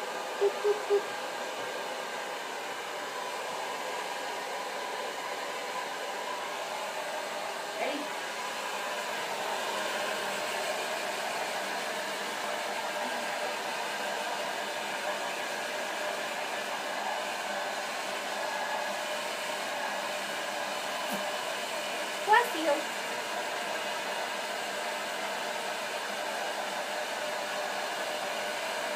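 Handheld hair dryer running steadily, blowing on a freshly bathed goat kid's wet coat. A short pitched sound blips three times near the start, and a brief louder pitched sound comes about three-quarters of the way through.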